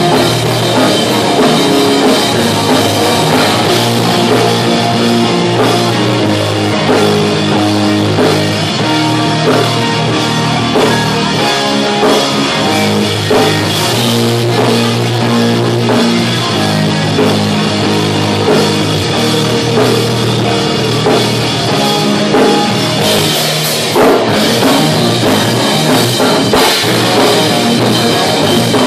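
Live rock band playing loudly, with a drum kit and guitar over sustained low notes that shift every second or two.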